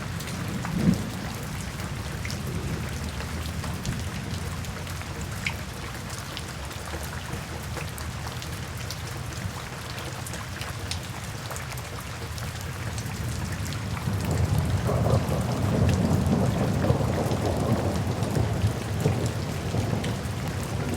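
Steady rain ambience with a low rumble of thunder that swells and grows louder about two-thirds of the way through. Scattered small sharp crackles, as from a wood fire, run through it.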